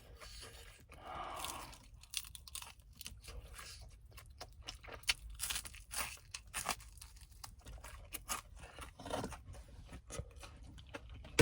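Crispy Korean fried chicken being bitten and chewed close to the microphone: a run of irregular crunches.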